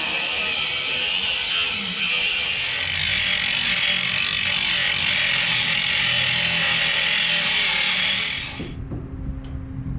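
DeWalt 20V MAX cordless angle grinder grinding the steel edge of a shipping container's door opening down flush with the floor: a steady, harsh, high grinding noise. It cuts off suddenly near the end.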